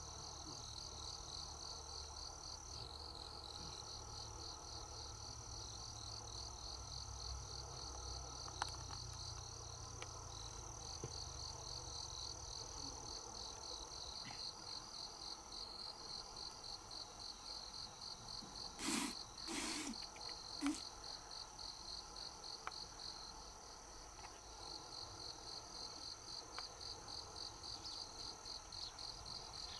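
Insects calling outdoors: a continuous high, rapidly pulsing chirr over a steady high-pitched whine. Two brief, louder rustling knocks come about two-thirds of the way through.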